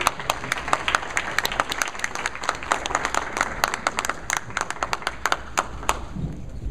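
A small audience applauding with dense hand clapping that thins out and stops about six seconds in.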